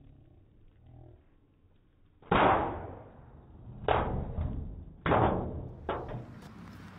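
Firework mortar shell going off inside a galvanized steel garbage can: a loud bang about two seconds in, followed by three more sharp bangs over the next few seconds, each fading quickly.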